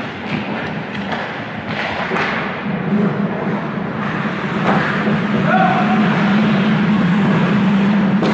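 Ice hockey game play in a rink: scattered thuds of puck and sticks against pads and boards over a steady low hum that grows louder a few seconds in, with faint distant voices.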